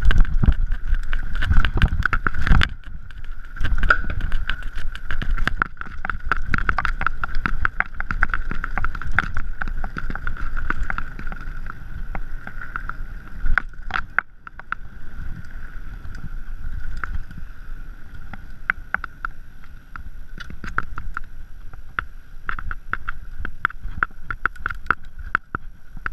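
Mountain bike ridden fast over rough dirt singletrack, picked up by a chest-mounted camera: constant irregular rattling and clattering from the bike over bumps, with a low rumble of jolts and wind on the microphone and a steady high buzz underneath.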